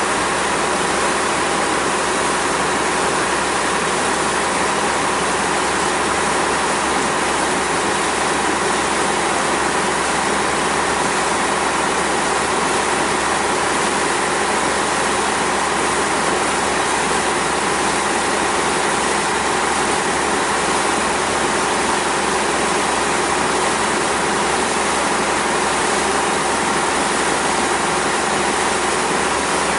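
Ferry engine running steadily under way, heard on board as a constant drone with a few steady tones.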